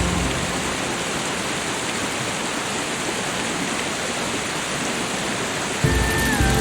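Steady, even rush of falling water, as in a relaxation soundscape of rain or a waterfall. Soft music with low sustained notes comes back in near the end.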